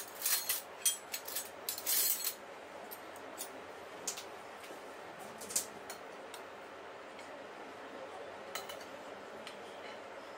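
Metal spoons clinking against each other and against ceramic plates: a quick flurry of clinks at the start, then a few single clinks as the spoons are set down on the plates.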